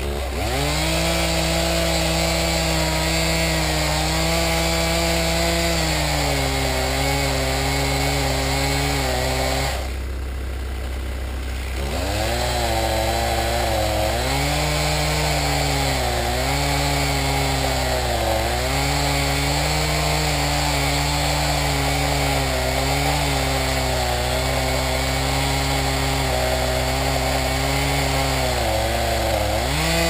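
Two-stroke chainsaw running at high revs in a felling cut, its pitch sagging and recovering as it bogs under load; it drops off about ten seconds in and revs back up about two seconds later. A steady low drone runs underneath.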